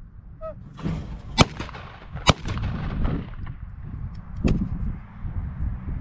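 Two shotgun shots fired a little under a second apart, the sharp reports of a skeet double, then a weaker sharp crack a couple of seconds later.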